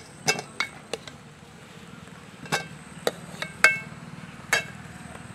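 A steel spoon clinking against a steel plate and an aluminium pot as boiled potatoes are lifted out and set down. There are about seven sharp clinks, several with a short metallic ring.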